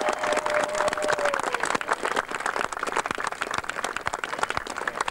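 Crowd applauding, many hands clapping. A steady held tone sounds over it for the first second and a half.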